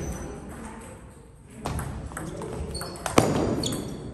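Table tennis ball in play: the serve and a short rally of sharp paddle hits and bounces on the table, several with a short high ping. The loudest hit comes about three seconds in.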